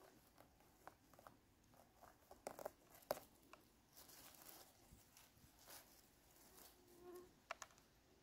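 Faint, scattered crackles and rustles of dry leaf litter and grass as a hand grips a porcini mushroom and works it loose from the forest floor.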